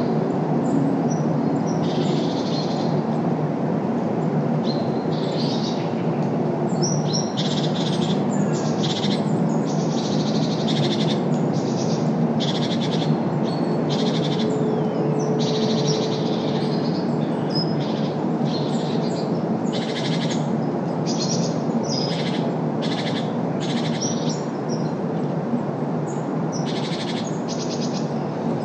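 Songbirds chirping in many short, high calls, one every second or so, over a loud, steady rumble of city traffic.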